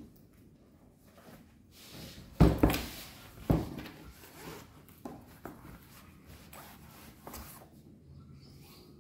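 Handling sounds of things being taken out of a bag and set down on a desk: two knocks about two and a half and three and a half seconds in, the first the loudest, then lighter clicks and rustles.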